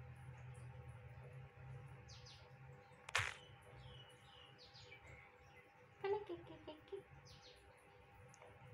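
Small birds chirping faintly in short, repeated high notes over a low steady hum. There is one sharp click about three seconds in, and a brief cluster of clicks with a short wavering sound about six seconds in.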